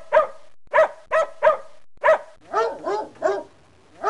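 Dog barking repeatedly in short, sharp barks, about two a second. A little over halfway the barks change to a lower, rising-and-falling bark, three in a row.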